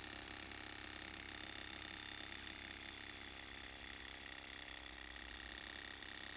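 Homemade free-piston Stirling engine made from glass syringes, running: the power piston shuttles rapidly in its glass cylinder against a rubber-band spring, giving a fast, steady rhythm.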